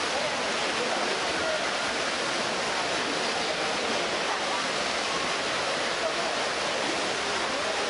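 Indoor swimming-pool race ambience: a steady, echoing wash of swimmers splashing through the water, with spectators' voices faintly mixed in.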